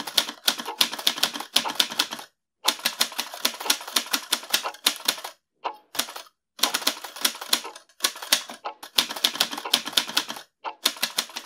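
Manual typewriter being typed on: quick runs of key strikes lasting a few seconds each, broken by short pauses.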